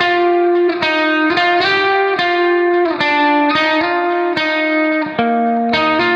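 Background music: a plucked guitar playing a melody of ringing notes, a new note struck every half second or so.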